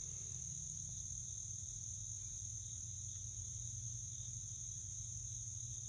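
Steady high-pitched insect chorus of crickets, faint and unbroken, over a low steady hum.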